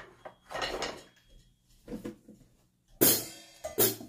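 A PDP drum kit starting to play about three seconds in: a loud crash-cymbal and drum hit with a long ring, followed by two more quick hits. A few quieter scattered sounds come before it.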